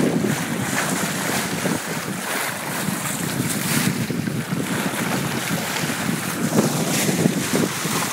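Steady wind noise buffeting the microphone over the rush and splash of water along the side of a sailing boat under way.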